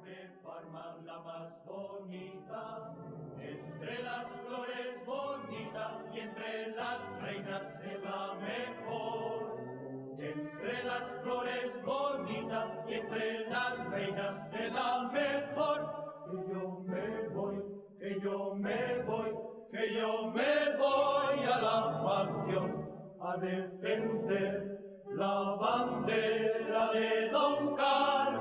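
A choir singing a slow chant-like song, fading in at the start and growing steadily louder.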